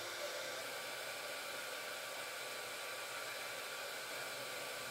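Steady, even whoosh of a mini LED projector's cooling fan running.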